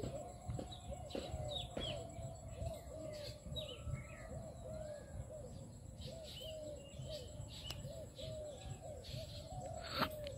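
Birds calling in the open: a quick, even run of short, low, repeated notes with scattered higher chirps above them, over a low rumble. There is one sharp click near the end.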